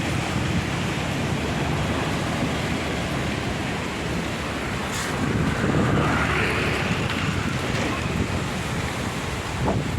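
Strong storm wind rushing and buffeting the microphone as a loud, steady roar, swelling in a gust around the middle.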